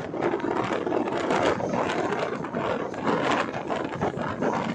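Running noise of a moving LHB passenger train: steady rumble of wheels on the rails with constant irregular clattering and rattling.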